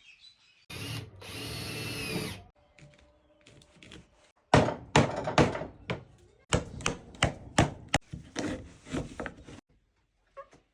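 A power tool runs for about a second and a half, then a run of sharp, irregular knocks on wood for about five seconds: woodworking shop sounds.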